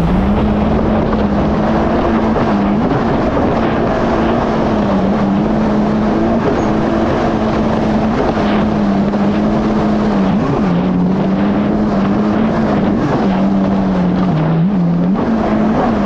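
Yamaha GP1800R SVHO jet ski's supercharged four-stroke engine running steadily at cruising speed, with water and wind noise. Its pitch dips briefly and recovers several times, mostly in the second half.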